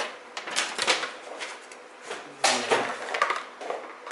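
Short plastic clicks and knocks of PC power cables and connectors being handled and plugged in, with a cluster just under a second in and a louder knock about two and a half seconds in.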